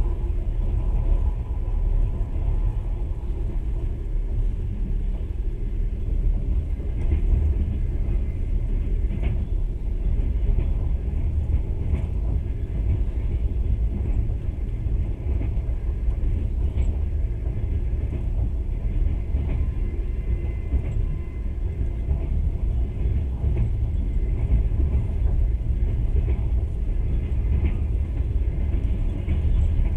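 Steady low rumble of a passenger train running along the rails, heard from inside the carriage, with a few faint clicks.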